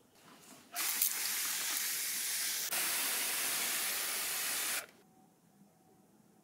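SONAX pump-pressure sprayer misting water onto a potted plant: a loud, steady hiss of spray that starts about a second in, breaks briefly near the middle, and cuts off after about four seconds.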